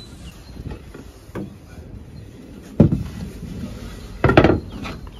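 Wooden battens knocking against each other and the floor as a pine frame is handled: a light knock, a sharper one a little over halfway, and a short cluster of knocks near the end.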